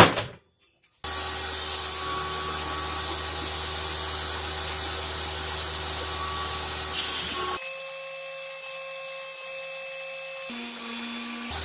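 A sharp knock, then an electric power tool working wood, running steadily with a constant hum; its sound changes abruptly twice in the second half.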